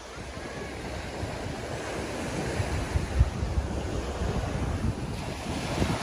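Strong surf washing up on a sandy beach, with wind buffeting the microphone in low rumbling gusts.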